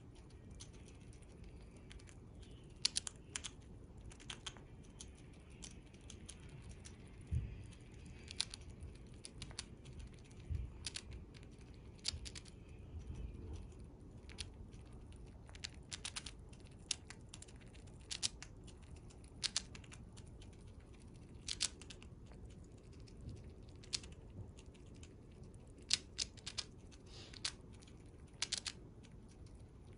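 Siberian chipmunk gnawing on a piece of pumpkin, its incisors making small, sharp crunching clicks at an irregular pace, about one or two a second.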